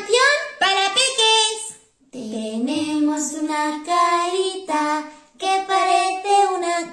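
Two women singing a children's song in Spanish in bright, high voices, with a brief pause about two seconds in.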